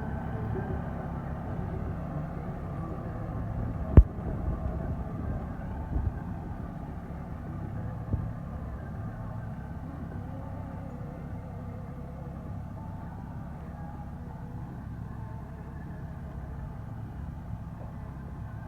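Massey Ferguson 6028 tractor engine running steadily. There is a sharp click about four seconds in and a couple of lighter knocks a few seconds later.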